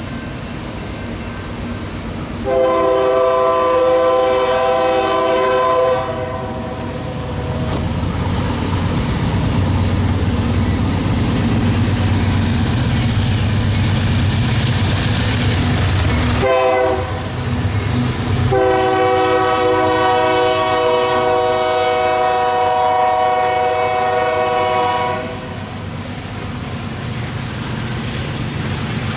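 CSX freight train's locomotive air horn sounding two long chord blasts of several steady tones, the first about four seconds long and the second about six, with a brief break between them. Underneath, a steady low rumble of the locomotive and the rolling freight cars.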